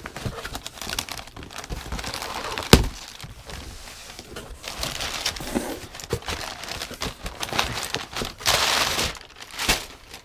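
A knife slitting the tape on a cardboard box and the flaps being pulled open, then brown packing paper crinkling and rustling as it is pulled out, loudest near the end. A single sharp knock comes a little under three seconds in.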